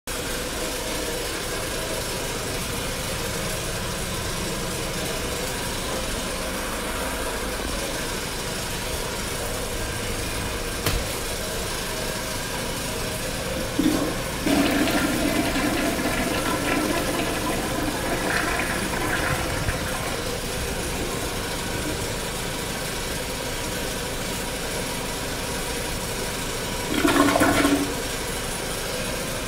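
1990s American Standard Cadet tank toilet flushing about fourteen seconds in: water rushes loudly into the bowl for several seconds, then eases off. A short burst of water noise comes near the end, over a steady background hum.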